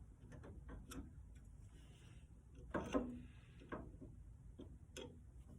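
Scattered small clicks and knocks from handling metal pipe fittings and tools on a workbench, the loudest clatter about three seconds in.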